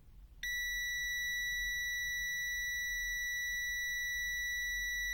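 Prokit MT1280D multimeter's continuity buzzer sounding a steady, high-pitched beep that starts about half a second in and holds unbroken. The beep signals that the resistance between the probes is below the continuity threshold of about 40 ohms.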